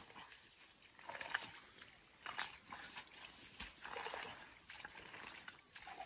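Hands squelching and splashing in wet mud, in short, irregular bursts about once a second.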